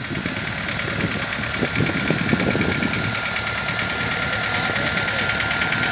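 1982 Escort 335 tractor's diesel engine running as the tractor drives slowly along a dirt track, growing a little louder as it approaches. A steady high whine sits above the engine sound.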